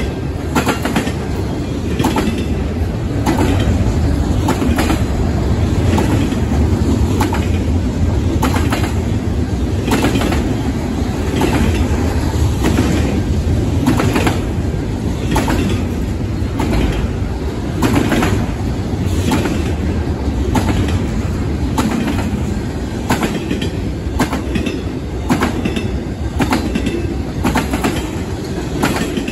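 Double-stack intermodal freight cars rolling past on jointed rail: a steady heavy rumble with repeated sharp clickety-clack as the wheel sets strike the rail joints.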